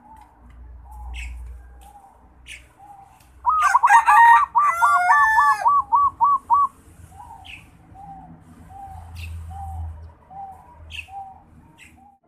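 Zebra dove (perkutut) cooing: a loud run of rapid, stuttering coos starts about three and a half seconds in and lasts about three seconds. Softer single coos repeat evenly before and after it. This is a young bird still learning its song. Short high chirps from another small bird come now and then.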